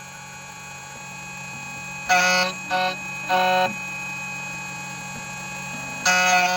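CNC key cutting machine's spindle running with a steady hum while its cutter cuts a Nissan NSN14 key blank. It gives short, loud, pitched screeches in groups of three, about two seconds in and again about six seconds in.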